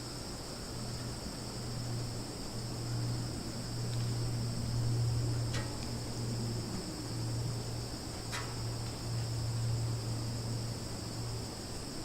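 Summer forest ambience: a steady high-pitched chorus of crickets over a low steady hum, with three brief faint chirps spread through it.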